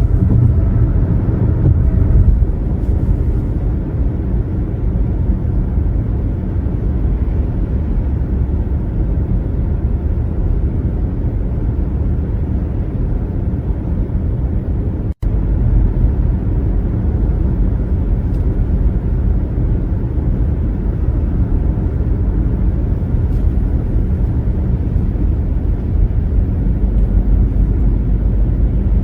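Steady low rumble of a car driving along a highway, tyre and road noise with engine hum. The sound cuts out for an instant about fifteen seconds in.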